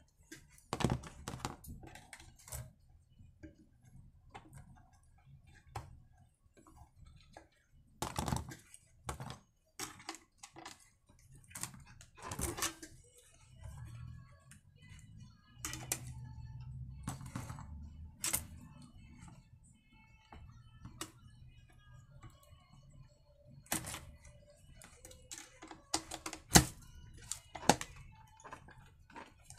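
Scattered clicks and knocks of a screwdriver and small plastic and metal parts as the anti-vibration damper on an Oleo-Mac 937 chainsaw's handle is unscrewed and fitted again. A low rumble of handling runs for a few seconds in the middle, and the sharpest knocks come near the end.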